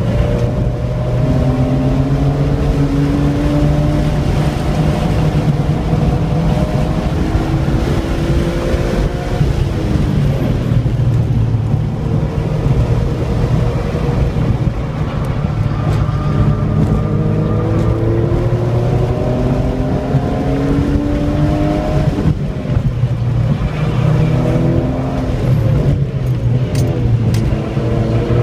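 2003 BMW M3's inline-six engine heard from inside the cabin on track, its pitch climbing under acceleration and falling back as the car slows for corners, several times over. Steady road and wind noise runs underneath.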